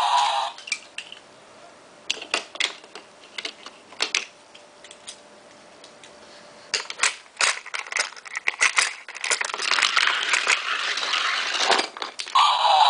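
Die-cast Hot Wheels toy cars and plastic toy pieces clicking and clattering as they are handled. There are scattered sharp taps at first, then denser rattling toward the end.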